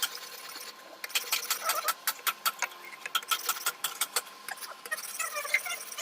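Rapid light tapping on a wood chisel as a lion head is carved, about four to six sharp strikes a second with short pauses, over a faint steady hum.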